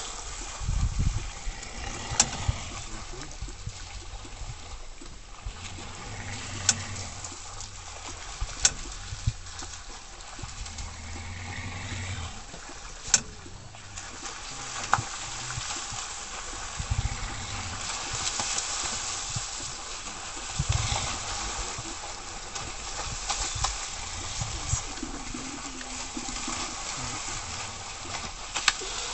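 Water splashing and churning as a moose and its calf lunge through a shallow pond, with heavy low thuds and a few sharp clicks scattered throughout.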